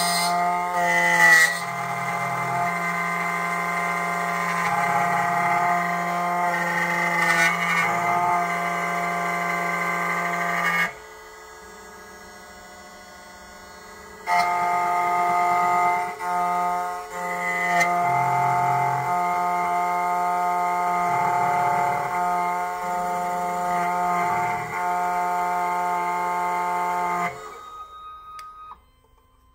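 SEC-E9 computerised key cutting machine cutting a car key blade: the spindle motor and carriage motors run with a steady whine of several tones and a low hum that shifts pitch as the carriage moves. The machine falls quiet for about three seconds roughly a third of the way in, resumes, then stops near the end.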